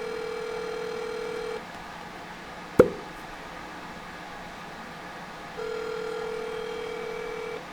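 Telephone ringback tone of an outgoing call ringing at the other end: a steady ring that stops about a second and a half in, then a second ring about four seconds later. A single sharp click falls in the gap between the rings.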